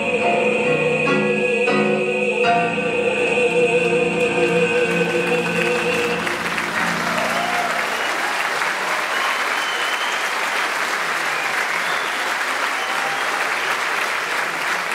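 A male singer holds a long final note over piano, upright bass and drums; the song ends about six seconds in and audience applause takes over.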